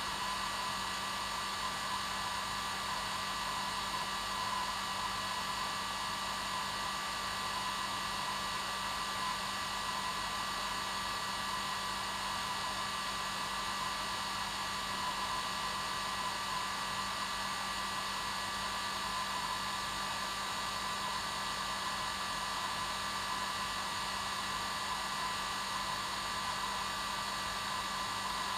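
Hair dryer running steadily on its normal setting: an even airy hiss with a constant motor hum and whine, unchanging throughout.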